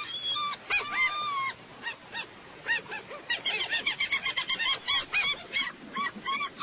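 Seagulls calling: a few drawn-out cries in the first second and a half, then a fast run of short, yelping calls through the second half.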